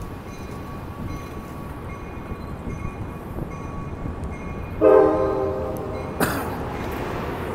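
Amtrak Capitol Corridor passenger train rolling slowly past as it departs the station, with a steady low rumble. About five seconds in, the train horn sounds one chord blast of about a second and a half, followed by a single sharp knock.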